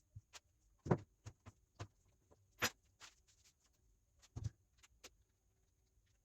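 Irregular light clicks and knocks of small hard objects being handled, with louder knocks about a second in and near the middle, and one sharp click between them.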